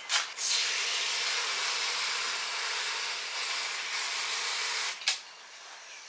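A pressurised spray hissing steadily for about four and a half seconds, starting and stopping abruptly, with a sharp click just before it starts and another just after it stops.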